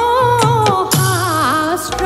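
A woman's voice singing an Assamese dihanam devotional song, the melody bending and wavering, over a steady beat of drum strokes whose low notes drop in pitch after each stroke.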